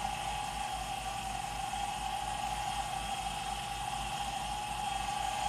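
Smithy 1220 LTD combo mill-lathe with its milling spindle running steadily, a steady whine from the motor and drive as a 3/16-inch end mill spins free, raised between plunge cuts.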